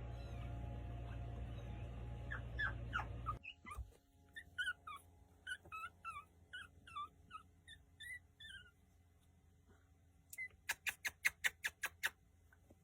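A puppy whimpering in a string of short, high squeaks that fall in pitch, over a steady low hum that cuts off about three and a half seconds in. Near the end comes a quick run of about ten sharp clicks.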